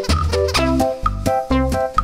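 Background music: pitched melody notes over a bass line, with a quick, steady beat of about four strikes a second.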